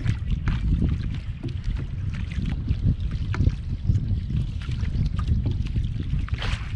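Wind buffeting the microphone as a steady low rumble, with water slapping and splashing against the hull of a small outrigger boat on choppy sea in scattered short strokes.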